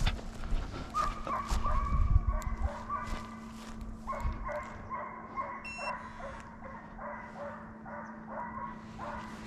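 A pack of deer hounds baying in chase, many short calls overlapping at about three a second from about four seconds in, as the dogs jump and run a deer. Footsteps crunch through dry grass and brush early on, and a short electronic beep sounds a little past halfway.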